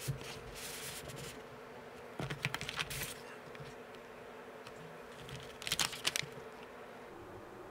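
Cardboard and paper packaging of a gel polish set handled with gloved hands: a printed sleeve slid off the box and cards lifted out, in three short bursts of rustling and clicking, about a second long each, over a steady faint hum.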